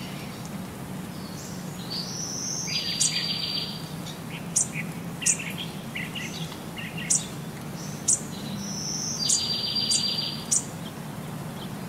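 High chirps and short pulsed trills with sharp clicks in between. The same chirp-and-trill pattern comes round again about six seconds later, over a low steady hum.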